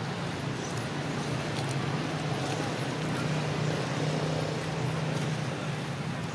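Steady low hum and rumble of background traffic, with a faint high chirp about every two seconds.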